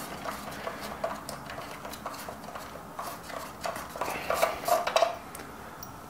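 Small metal nut being spun off by hand from the threaded bushing of a coffee grinder's timer switch: light scraping and scattered small clicks of metal against the plastic housing, louder about four to five seconds in.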